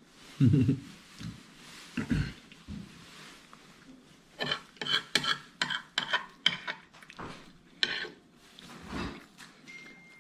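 Metal fork clicking and scraping against a ceramic plate, a quick run of clicks between about four and a half and eight seconds in, while scrambled eggs are scooped up. Two low thumps come about half a second and two seconds in.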